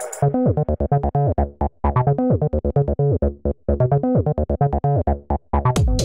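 Tinny electronic keyboard-like tune of short, quick notes with brief gaps, played by a transforming toy police car's built-in speaker as it turns into a robot.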